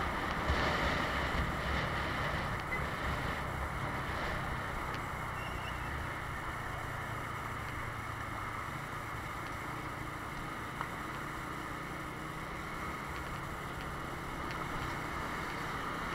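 Road noise of a moving vehicle: wind rushing over the microphone, heavier in the first few seconds, over a steady engine hum.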